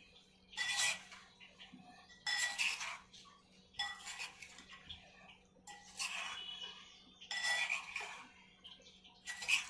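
Metal spoon scraping and clinking against a ceramic bowl as green chillies are stirred through an oily spice mix, in about six strokes roughly one and a half seconds apart.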